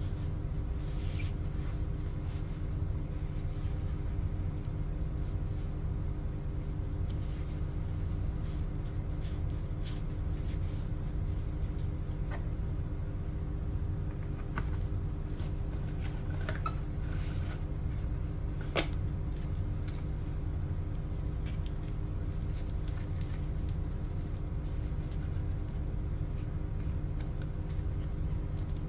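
Hands handling a 360 camera and its cardboard box and plastic-and-paper packaging: scattered light clicks, taps and rustles, with one sharper click about two-thirds of the way through, over a steady low hum.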